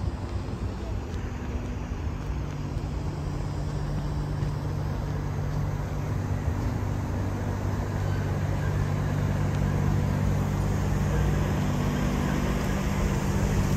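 City street traffic noise with the steady hum of a vehicle engine running nearby, slowly growing louder.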